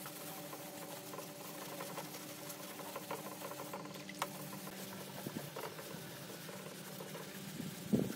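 Hand wet-sanding of a filler-coated car body panel with sandpaper on a block: soft scratchy rubbing strokes, broken about four seconds in as the paper is dipped in a basin of water, and a louder burst of scraping near the end. A steady low hum runs underneath.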